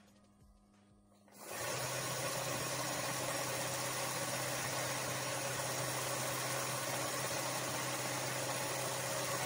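A steady machine noise, a motor's hum under a rushing hiss, starts abruptly about a second and a half in and runs on evenly.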